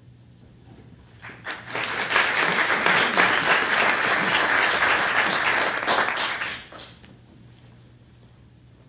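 Audience applauding, starting about a second in and dying away about seven seconds in.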